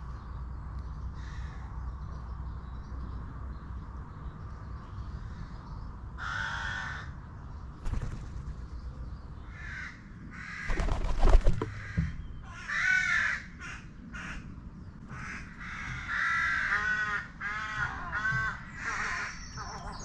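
Corvids cawing: harsh calls with a rising-and-falling pitch, one about a third of the way in, then quick runs of several calls through the second half. Around the middle comes a loud low rumble with a sharp thump, the loudest sound.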